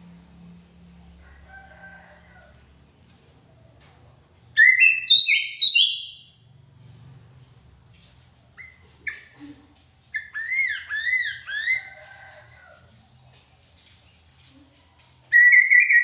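Greater racket-tailed drongo singing loud, clear whistled phrases in bursts. A run of ringing whistles comes about four and a half seconds in, a string of repeated arching up-and-down whistles follows from about ten to twelve seconds, and another loud phrase comes at the end.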